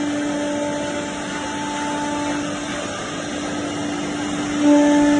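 CNC machining center running: a steady machine hum with a constant whine over a broad hiss, growing louder near the end.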